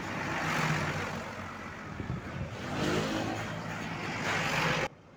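Tour coach right alongside, its engine running under a wash of road and air noise, with a short rising engine note about two and a half seconds in. The sound cuts off suddenly near the end.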